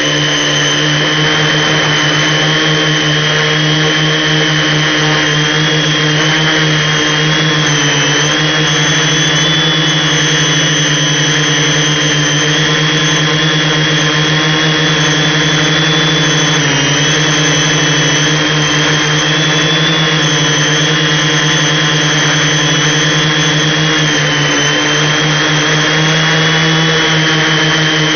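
Brushless electric motors and propellers of a multirotor in flight, a steady high whine that wavers slightly in pitch with throttle, dipping briefly a few times.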